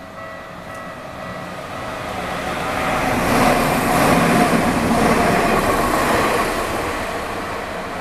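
Tokyu Ikegami Line electric commuter train passing over a level crossing. Its noise swells to a peak about halfway and fades toward the end. The crossing's warning bell is ringing at the start and is soon covered by the train.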